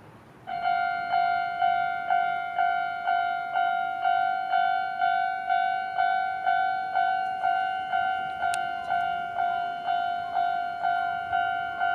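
Japanese railway level-crossing warning bell starting about half a second in and ringing a steady, even 'kan-kan' of about two strikes a second, the crossing's signal that a train is approaching.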